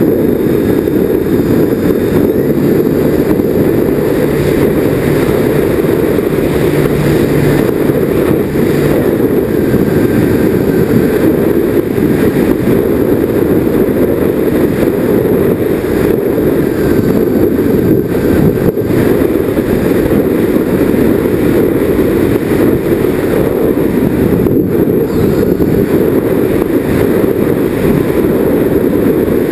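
Twin motors and propellers of a Nitroplanes Grand Cruiser RC plane running steadily in flight, picked up by a camera riding on the plane as a loud, steady low noise mixed with wind on the microphone.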